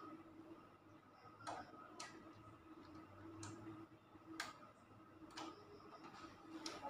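Faint, irregular sharp clicks and ticks of a screwdriver and wire ends against the metal terminal screws of miniature circuit breakers in a distribution panel, about six in all, over a faint steady hum.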